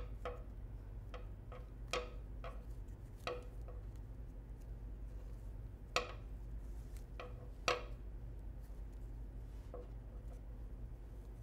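Irregular light clicks and taps from handling a dreamcatcher hoop and ribbon while knots are tied in the web, about ten in all, the sharpest about six and eight seconds in. A steady low hum runs underneath.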